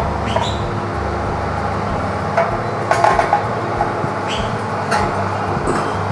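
A glass baking dish clinks and knocks against the metal oven rack as it is slid in and adjusted, a few sharp clicks around the middle and once more later, over a steady hum and rushing noise.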